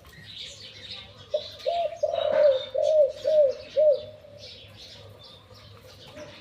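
Spotted dove cooing: a run of about six deep, arched coos over some two and a half seconds, the third one drawn out. Small birds chirp faintly throughout.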